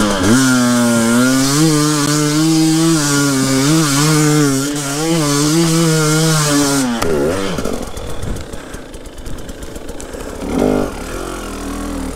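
KTM EXC 300 TPI single-cylinder two-stroke enduro engine pulling up a slope in second gear: revs rise at the start, then the throttle is held steady and the engine runs at high revs for about seven seconds. The revs then drop, and it runs lower and quieter with a short blip of throttle near the end.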